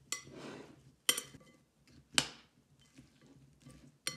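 Metal spoon and wooden chopsticks tossing chopped cucumber salad in a glass bowl: four sharp clinks of the utensils against the glass, about one a second, the loudest about halfway, with the soft rustle of the dressed vegetables between.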